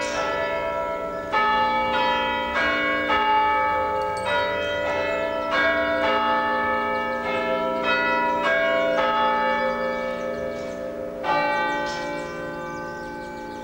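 A ring of church bells pealing, several bells struck one after another with each ringing on under the next. The peal stops abruptly near the end.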